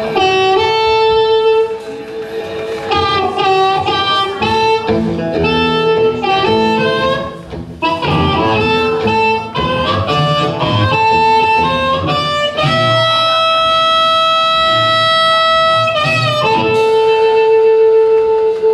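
Live blues harmonica playing the song's opening, with long held notes, bends and quick warbling trills. Lower guitar notes sound underneath. It starts abruptly.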